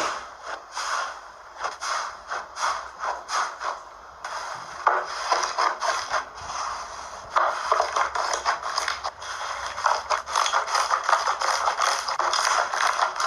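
Slime being squeezed and pressed by hand, making crackling, popping sounds in short bursts: a few a second at first, then denser and almost continuous in the second half, stopping abruptly at the end.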